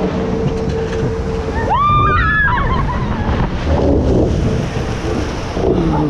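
Log-flume boat running down the water slide: wind rushing over the microphone and water rushing beneath the boat, ending in a heavy splash at the bottom. A rider lets out a rising scream about two seconds in.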